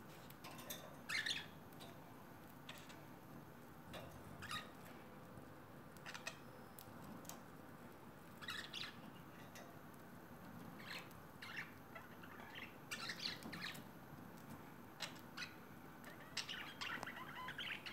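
Pet budgerigars chirping and chattering in short scattered calls, thicker toward the end.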